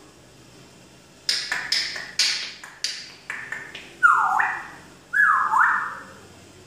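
African grey parrot imitating sound effects: a quick string of six or seven sharp, hissy clicks, then two loud swooping calls that glide down in pitch and snap back up.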